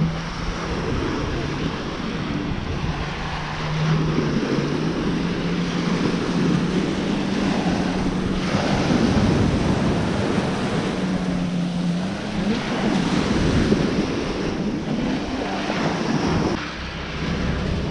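Surf washing on a sandy beach, with wind buffeting the microphone and a low steady hum under it; the sound changes abruptly near the end.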